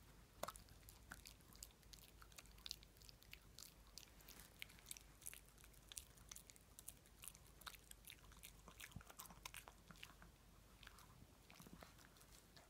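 A Shih Tzu chewing a small dry treat: a fast, irregular run of faint crunches and clicks of its teeth.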